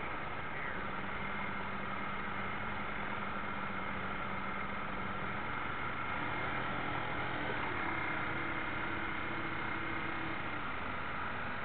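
Drive motor of a radio-controlled model destroyer humming steadily under way, picked up by a camera on its aft deck, over a wash of water and wind noise. About halfway through the hum's tone changes, moving to a higher pitch.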